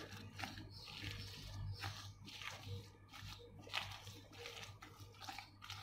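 Silicone spatula stirring and folding a thick mashed eggplant and breadcrumb mixture in a glass bowl: faint, irregular squelching strokes.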